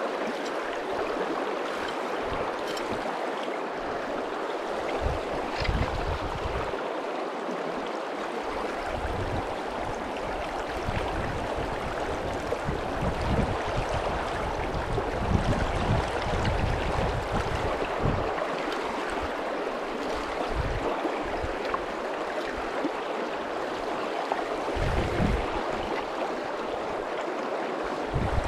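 River water rushing steadily over a shallow, stony bed, with irregular low rumbles underneath.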